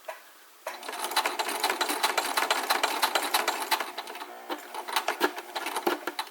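Sewing machine stitching a reinforcing box stitch across a bag handle: it starts about a second in, runs with rapid needle clatter, eases briefly about four seconds in, then picks up again and stops near the end.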